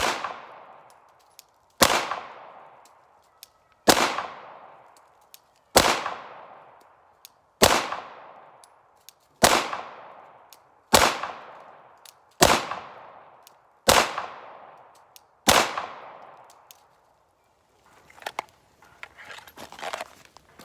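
Ten slow, aimed shots from a Glock 17 Gen 5 9mm pistol firing 115-grain ball ammunition, about two seconds apart and a little quicker toward the end, each sharp report trailing off with an echo. Faint rustling follows the last shot.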